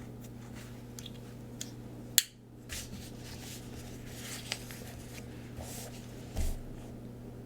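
Quiet handling of stationery on a desk: small clicks and taps, one sharp click a little over two seconds in, and a soft thump near the end, over a steady low room hum.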